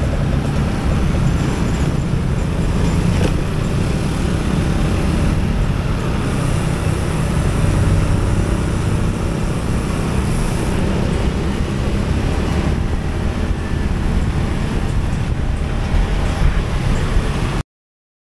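Motorcycle riding in slow city traffic, heard from the bike: a steady low rumble of its engine, tyres and the surrounding traffic, cutting off abruptly near the end.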